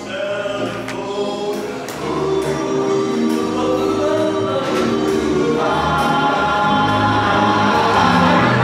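Background music with a choir singing in a gospel style, growing fuller about two seconds in.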